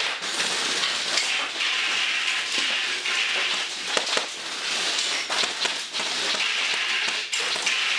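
A stream of airsoft BBs from an M134 minigun pelting the building, a dense steady crackling clatter with sharper individual hits scattered through it. It starts abruptly.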